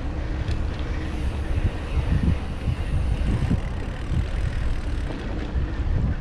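Wind buffeting the microphone of a camera on a moving mountain bike: a steady low rumble that swells and dips in gusts.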